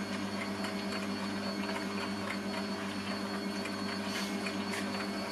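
Kitchen stand mixer running at a steady speed, its motor giving a constant even hum while it kneads soft butter with herbs and garlic into herb butter.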